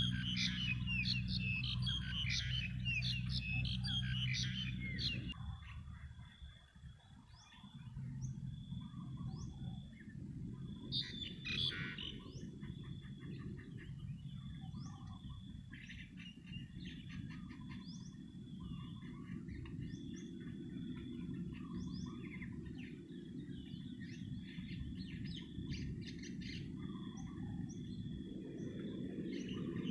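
Small birds chirping and twittering, thick for the first five seconds and then scattered, over a low steady rumble and a thin steady high tone.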